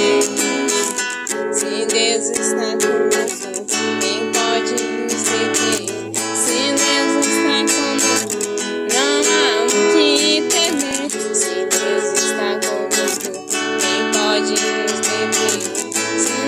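Acoustic guitar strumming chords in a gospel worship song, an instrumental passage with a melody line over it.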